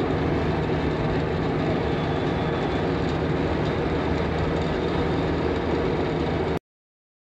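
Steady road traffic noise, a loud even rumble and hiss with a low hum under it, cutting off abruptly near the end.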